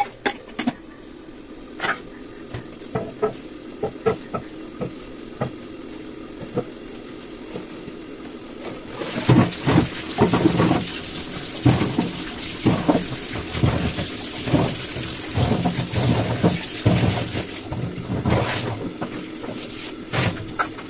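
Sharp metal clinks and taps of a ladle and pressure-cooker lid, then from about nine seconds in a kitchen tap runs hard into a steel sink, with knocks and splashes as potatoes are washed under it, stopping a couple of seconds before the end.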